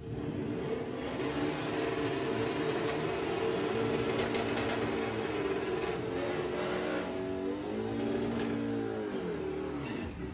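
Drag-racing VW Beetle doing a burnout: the engine is held at high revs while the rear tyres spin in smoke. Near the end the revs rise and fall before the engine is let off.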